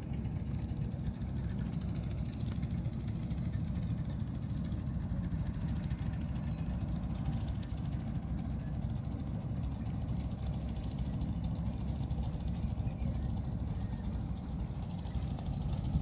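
Wind buffeting the microphone: a steady low rumble with irregular flutter.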